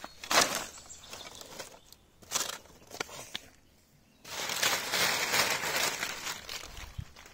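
A bundle of dry sticks clattering as it is handled on the ground, loudest about half a second in, with a few more knocks. After a short quiet gap, dry fallen leaves crunch and crackle steadily as a hand gathers them up.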